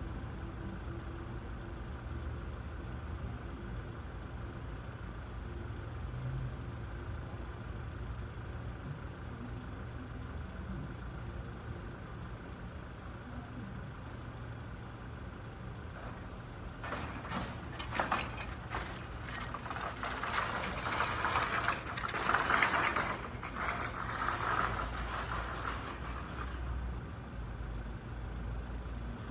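City road traffic: a steady low engine rumble, then a vehicle passing louder with a rush of tyre and engine noise that builds a little past halfway, peaks, and fades near the end.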